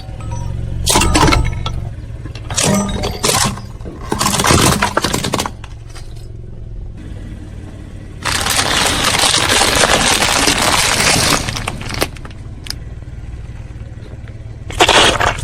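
A car tyre rolling over brittle objects and crushing them: a series of crunching, cracking bursts, with a longer stretch of crackling in the middle, over the low hum of the car's engine.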